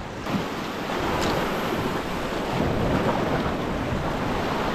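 Sea waves washing and splashing over a rocky shoreline, with wind on the microphone.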